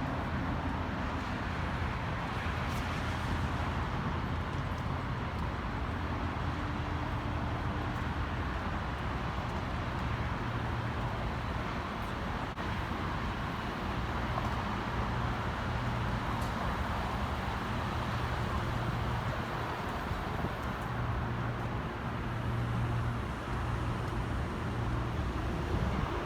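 Steady low engine rumble with an even hum, unchanging in level.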